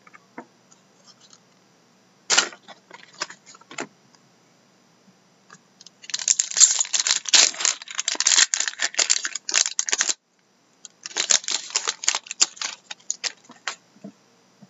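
Foil trading-card pack wrapper crinkling and tearing as it is opened and crumpled by hand, in bursts of crackling: a brief one after about two seconds, a long dense stretch in the middle, and another shorter stretch near the end.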